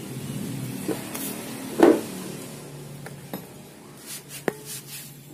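Loose metal engine parts and a cylinder head being handled on a workshop floor: one solid knock about two seconds in, then a few light metallic clicks. A steady low hum fades underneath.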